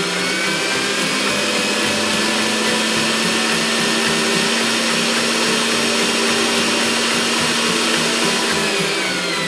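Electric blender motor running at a steady high speed for several seconds, spinning up at the start and winding down near the end.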